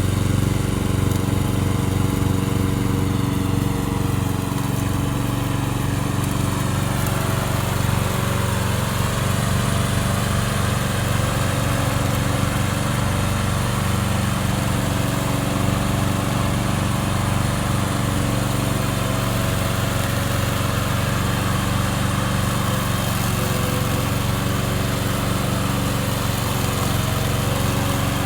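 Gasoline engine of a remote-control tracked lawn mower running steadily. Its note shifts during the first several seconds, then holds even.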